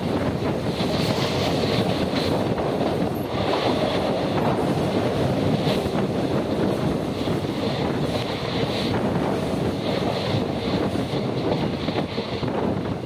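Coaches of an Indian express train running steadily on the track: a constant rumble of wheels on rail, with the click of wheels passing over rail joints.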